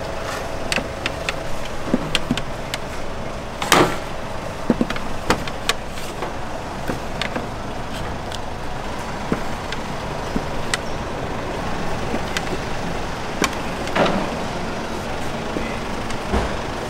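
Steady hiss of a busy street-food stall kitchen with frequent sharp clinks and knocks of utensils, the loudest about four seconds in and again near fourteen seconds.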